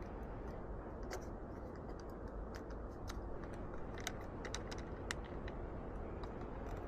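Faint, irregular small clicks and taps of a camera clamp mount being handled and fitted onto a motorcycle, over a steady low background noise.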